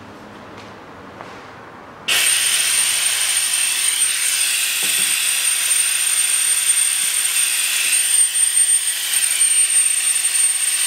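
A suction pump switches on abruptly about two seconds in and runs with a loud, steady hiss and a thin high whine. It is drawing old power-steering fluid out of the disconnected hoses through a thin tube.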